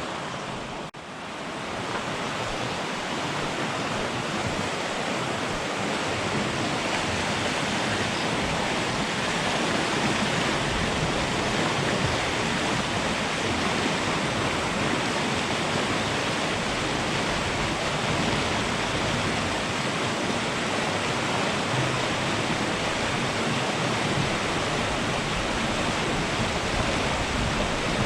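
Steady rush of river water, an even hiss that barely changes, briefly dropping out about a second in.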